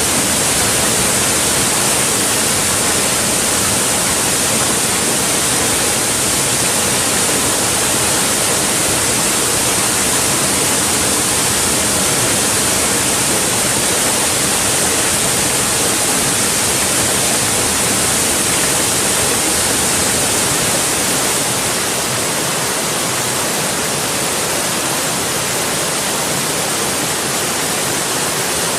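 Mountain valley stream rushing steadily, a dense, even hiss of running water; it gets a little quieter about three-quarters of the way through.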